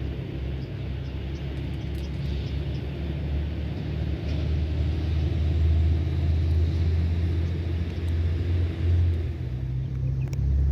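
Low, steady rumble of road traffic, with faint crunching of a cat eating dry kibble from a steel bowl.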